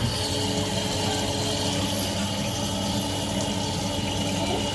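Heatline boiler's combustion fan motor running with a steady hum after a click at the start. The fan is faulty: lubricating it with WD-40 does not get it working properly, and it has to be replaced.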